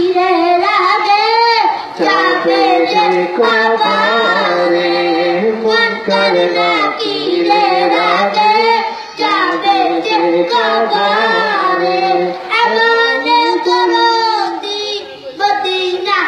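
A boy singing a Bengali naat (Islamic devotional song) into a microphone, with a continuous, winding melody.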